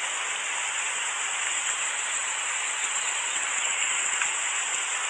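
Steady rain falling, an even hiss with no music over it.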